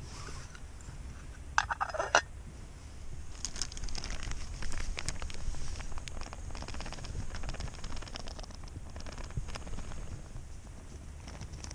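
Ground coffee poured from a plastic zip bag into a moka pot's metal filter basket: a dense run of fine crackling and rustling as the bag crinkles and the grounds pour in. Two short, louder rustles come about two seconds in.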